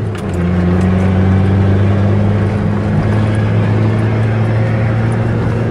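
Mitsubishi Pajero 2.5's engine heard from inside the cabin, pulling the vehicle along a snowy off-road track. It dips briefly just after the start, then runs steadily.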